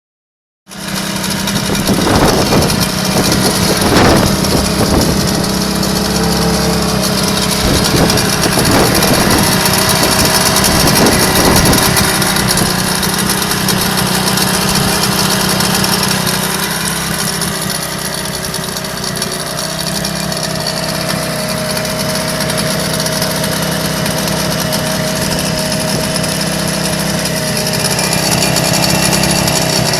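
Yamaha 15 hp outboard motor running steadily, with a few thumps during roughly the first twelve seconds.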